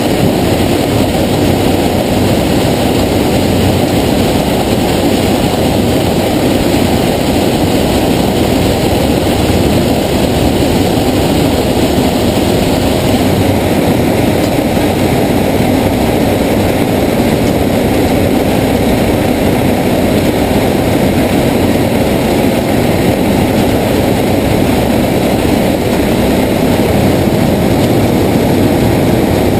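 Vervaet sugar beet harvester working in the field, heard close up at its lifting unit: a loud, steady mix of diesel engine and machinery running, with no change in pace.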